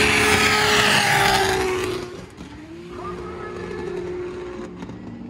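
Drift car sliding past at full throttle, engine revving high with tyres squealing, loud for about two seconds. Then it fades away, and its engine note climbs again more distantly about three seconds in.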